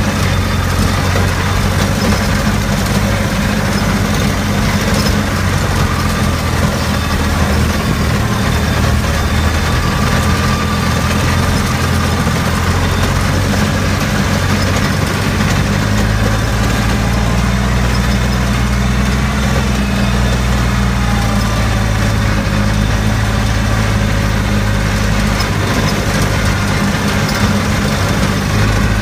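Small farm tractor's engine running steadily as it drives along a sugarcane furrow.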